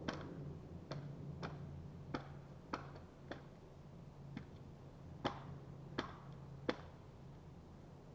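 An axe striking wood in light, sharp chops, about ten at uneven intervals, the loudest near the start and between about five and seven seconds in.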